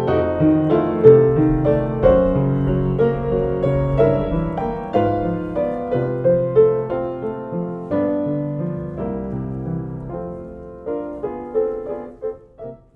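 Piano music: a flowing run of notes over held low bass notes. It grows gradually quieter and thins to a few scattered notes near the end.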